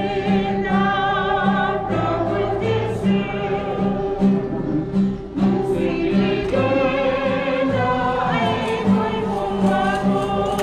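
A choir singing a gospel hymn over a steady accompaniment whose low note repeats about twice a second.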